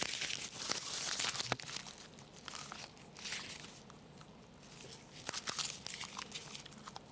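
Magazine pages being torn and crumpled by hand and chewed, a dry rustling crackle with sharp clicks. It is loudest in the first second and a half, then thins to fainter scattered crackles.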